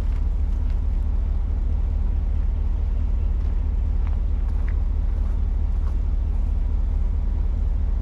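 An engine running steadily at a constant speed, with a heavy low rumble.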